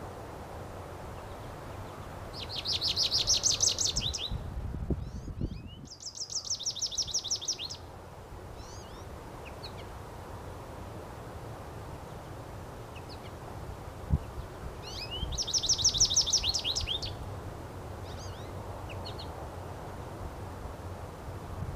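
European goldfinch singing: three bursts of rapid, high trilling, each lasting a second or two, with a few short chirps scattered between them.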